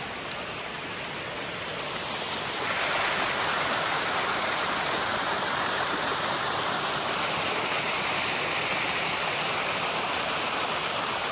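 Water rushing down a small mountain waterfall and stream: a steady rushing that grows louder over the first few seconds, then holds even.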